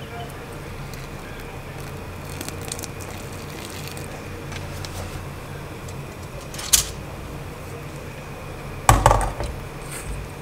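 Water pouring from a glass electric kettle into a stainless steel mixing bowl, over a steady low hum. A sharp click comes near seven seconds in, then a louder cluster of knocks and clatter about nine seconds in as a utensil starts stirring in the metal bowl.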